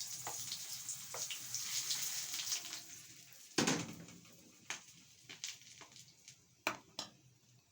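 Oil sizzling under a chips-and-egg omelette (chips mayai) frying in a pan, fading after about three seconds. A sharp knock comes about three and a half seconds in, followed by several lighter knocks as the pan and a plate are handled to turn the omelette over.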